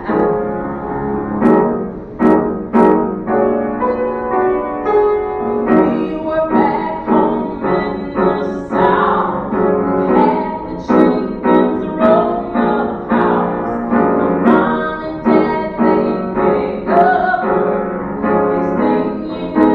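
A woman singing a musical-theatre song to piano accompaniment.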